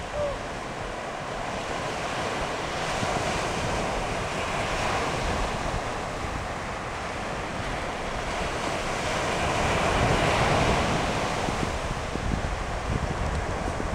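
Ocean surf breaking and washing up the beach, a steady rush of water that swells louder in the second half and then eases.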